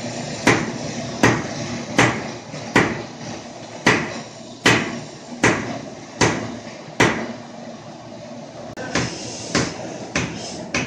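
Sledgehammer blows on steel held in tongs on an anvil, struck in a steady rhythm about once every three quarters of a second, each blow with a short metallic ring. Near the end the strikes come quicker and lighter, about twice a second.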